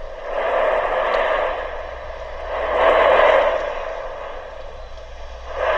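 Erupting Cumbre Vieja volcano on La Palma roaring, a rushing noise that swells and fades in surges about every two and a half seconds.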